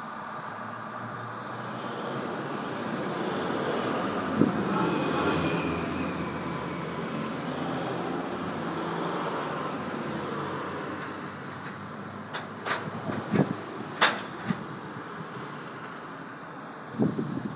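An SUV driving past on the road, its tyre and engine noise swelling over a few seconds and then fading away. Several sharp knocks near the end.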